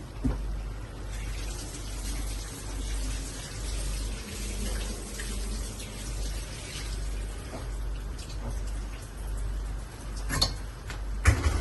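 Water running in a kitchen, a hissing rush that fades after several seconds, over a steady low rumble. Sharp knocks of handling come near the end.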